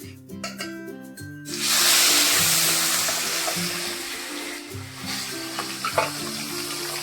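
Food dropped into hot mustard oil in a pan: a sudden loud sizzle that slowly dies down to a steady frying hiss, with a sharp knock of a utensil on the pan near the end.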